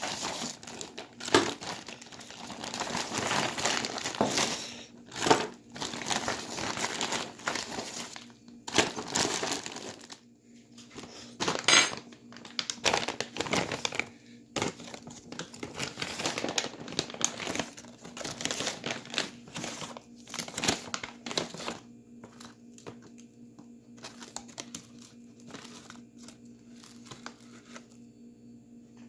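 Plastic bag crinkling and rustling as it is handled, in irregular bursts, dying down to faint scattered crackles after about twenty seconds.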